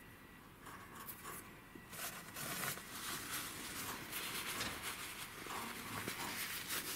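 Irregular rustling and scratching of a chinchilla's fur against clothing as the animal, held on its back, is handled and shifts about. It starts about two seconds in, after a quiet start.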